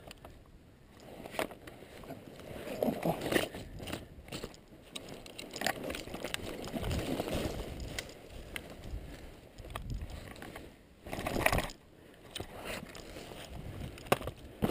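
Rustling and scraping as a person moves through long grass and brush in camouflage gear, with scattered sharp clicks and knocks from the gear and rifle.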